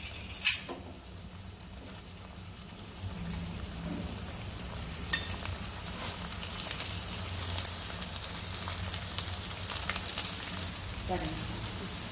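Sesame seeds and val dal frying in hot oil in a steel kadai: a steady sizzle with scattered crackles as the sesame seeds splutter. The sizzle grows louder from about three seconds in. Two sharp knocks come in the first half second.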